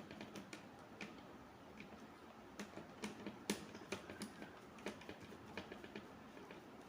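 Faint, irregular small clicks and taps of a screwdriver and wire being worked into a contactor's A2 coil terminal, the sharpest click about halfway through.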